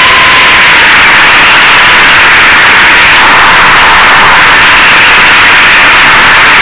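FPV quadcopter's motors and propellers heard through its onboard camera microphone: a loud, steady hiss of wind and prop wash with a thin motor whine held at one pitch, dipping slightly about a second in.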